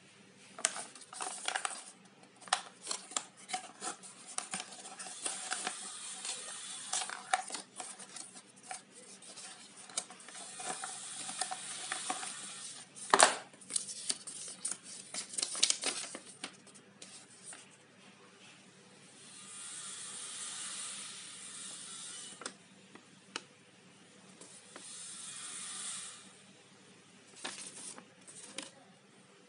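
Hands handling small plastic items and packaging close to the microphone: irregular clicks and taps, one sharp louder click about midway, and two stretches of steady rustling in the second half.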